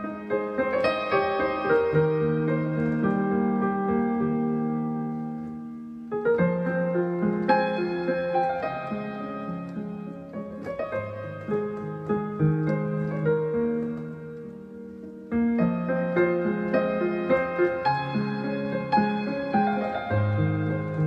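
Solo piano playing a slow, gentle melody over low bass notes, in phrases: the sound fades away about six seconds in and again around fourteen seconds before a new phrase begins each time.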